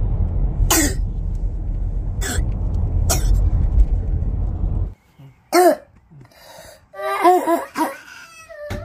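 A child's barking croup cough. First come three short, harsh coughs over a steady low rumble. After the rumble stops about five seconds in, there is a run of hoarse, pitched barking coughs, several in quick succession near the end.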